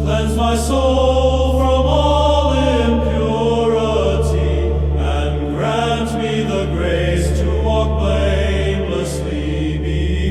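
Background music of choral chanting over a steady low drone, the voices gliding between held notes.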